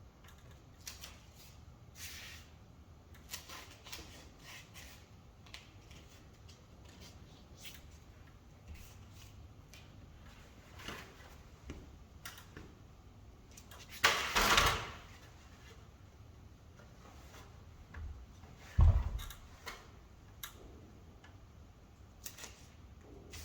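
Scattered clicks, knocks and handling noises as a van window is worked into its opening, with a louder scraping rustle about 14 seconds in and a sharp low thud about 19 seconds in.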